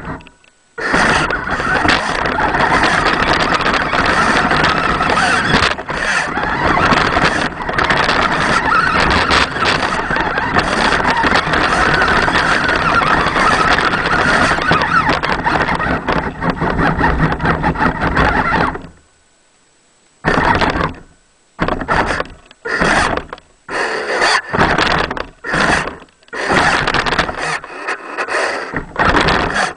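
A 4WD radio-controlled truck running continuously, its drivetrain noise picked up by a camera in a waterproof housing mounted on the truck. A little before the end it stops, then it runs in short bursts of a second or two with pauses between.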